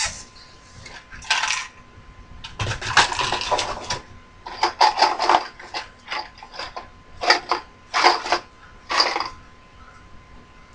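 Small metal hardware clinking and rattling as it is handled and rummaged through, in a string of short clattery bursts with brief pauses between.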